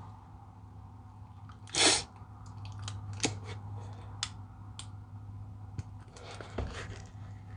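A short, sharp burst of breathy noise about two seconds in, followed by scattered clicks and handling noises over a steady low hum.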